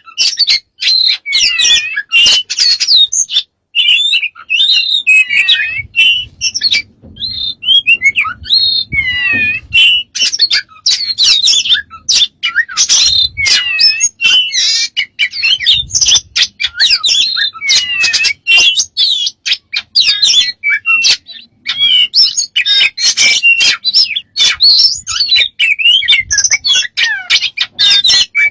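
A pet bird calling without a break: a rapid, varied stream of chirps, gliding whistles and squawks mixed with sharp clicks.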